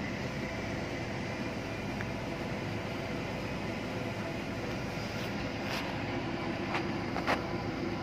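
Steady machinery drone with a few faint whining tones running through it. About six to seven seconds in come a few light clicks, most likely from handling the metal assembly.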